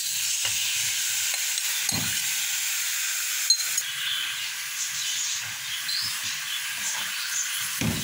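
Cubed raw chicken sizzling in hot oil with garlic and ginger in a steel kadhai, stirred with a spoon that scrapes and knocks against the pan now and then. One sharp click about three and a half seconds in.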